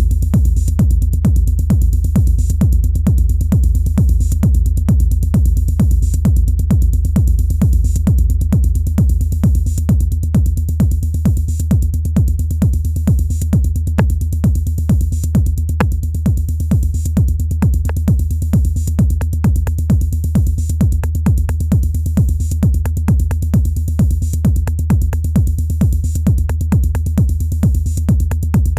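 Elektron Analog Rytm drum machine playing improvised techno: a steady heavy kick pulse over a continuous deep bass, with fast, evenly spaced high ticks on top.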